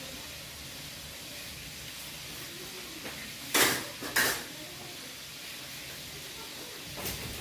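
Steady hiss of a large aluminium stockpot simmering, broken a little past halfway by two short, loud clatters, with a fainter one near the end.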